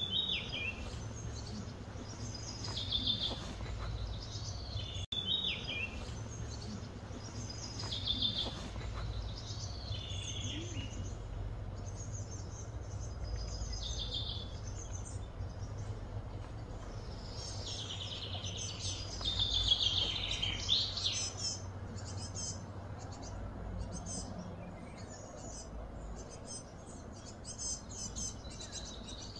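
Wild birds calling: short, high chirping phrases repeated every couple of seconds, busiest and loudest about two-thirds of the way through, over a steady low background hum.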